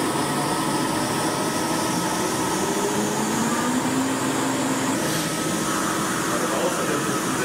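Steady workshop machinery noise: an even rushing hiss with a faint machine hum under it.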